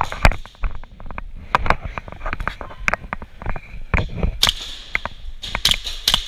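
Airsoft gunfire: irregular sharp snaps and clicks of shots and BBs, with a louder cluster of snaps about four seconds in and again near the end.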